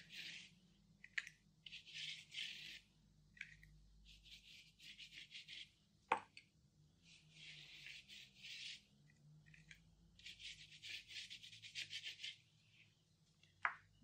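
Paintbrush scrubbing paint onto a textured paper-and-thread collage surface, in five or so scratchy strokes of about a second each, with one sharp tap about six seconds in.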